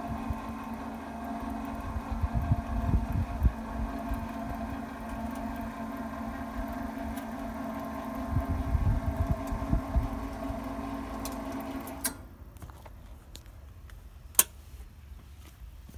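Electric motor and drive of a KM-25 leaf-tobacco baling press running with a steady hum as it raises the press plate, cutting off suddenly about twelve seconds in. A single sharp click follows near the end as a control-panel button is pressed.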